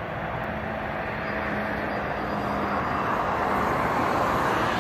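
Airbus Beluga A300-600ST's jet engines: a steady rushing noise with a faint hum, growing louder over the few seconds.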